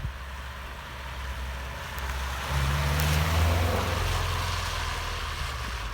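Motor vehicle engine and road noise, a low hum with hiss that swells about two and a half seconds in, peaks, then eases off.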